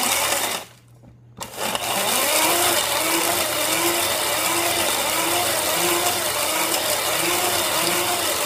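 Hand-crank blender grinding dried pear skins into powder: a continuous whirr of blade and gearing, with a whine that rises and falls with each turn of the crank, about one and a half times a second. It stops briefly about a second in, then starts again.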